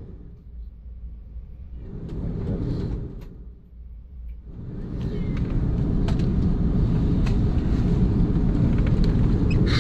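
Airbus A330 cabin noise during taxi: the low rumble of the Rolls-Royce Trent 700 engines at taxi power and the rolling airframe. It is weaker at first, swells and fades once, then holds steady and loud from about halfway through, with a few faint clicks.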